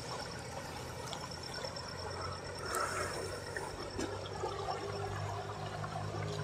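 Water flowing steadily over a small dam, a gentle trickling rush that is not very strong.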